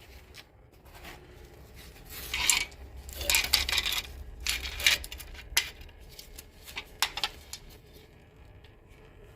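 Hand work at an engine's rear main seal area: irregular rubbing and scraping with a few light metallic clinks of tools, as the oily area is cleaned up.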